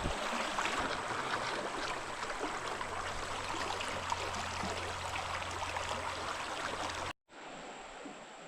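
Running river water making a steady rushing hiss; it breaks off abruptly about seven seconds in and comes back quieter.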